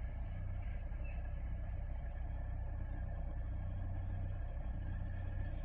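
Lada Niva Legend's 1.7-litre four-cylinder petrol engine idling steadily while warming up: an even low hum with no change in speed.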